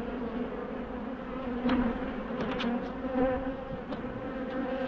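Swarm of honeybees buzzing steadily around an opened hive, a low, even hum with a few light clicks over it.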